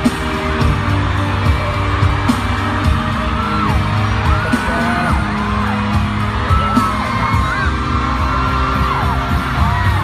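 Live arena concert sound: music from the sound system under a large crowd of fans cheering and screaming, with many high shrieks rising and falling over the steady din.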